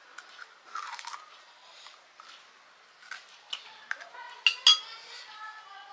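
Dishes and utensils clinking as panipuri are eaten: scattered taps and clinks, the loudest two close together about four and a half seconds in, ringing briefly.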